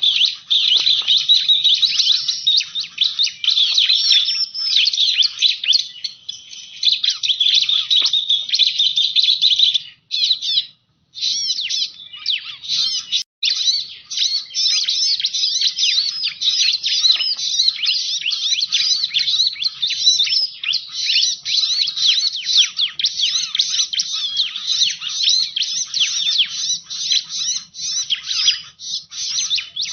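Ciblek (bar-winged prinia) calling in a dense, rapid run of high chirps and twitters, the kind of recording played as a lure call. The calling breaks off briefly about ten seconds in and again about thirteen seconds in.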